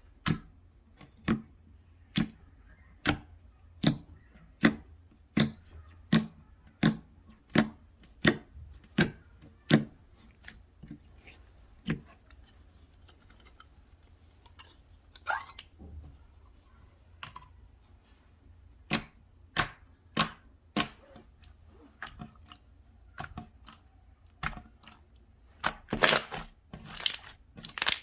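Slime being pressed and squished by hand, giving sharp popping clicks, at first about one every three-quarters of a second, then irregularly, with a quick run of pops near the end.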